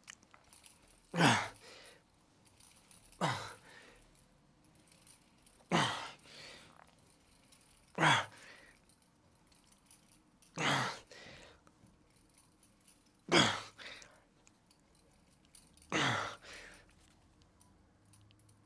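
A man breathing out hard and catching his breath after a set of cable triceps pushdowns: seven heavy exhales, one about every two and a half seconds, with quieter breathing between them.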